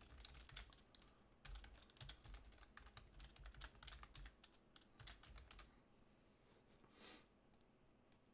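Faint typing on a computer keyboard: a quick run of keystrokes for about five and a half seconds, then it stops.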